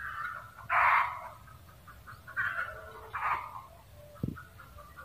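Red junglefowl cackling: a run of short, harsh clucking calls, the loudest about a second in and two more around two and a half to three and a half seconds. A brief low knock sounds just after four seconds.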